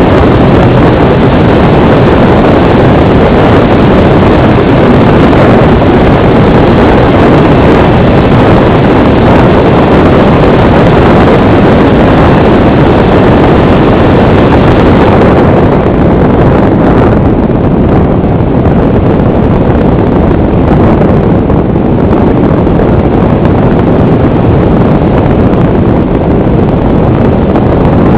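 Loud, steady rush of wind and motor noise picked up by the onboard camera of an FPV model aircraft in flight. The higher hiss drops away about fifteen seconds in.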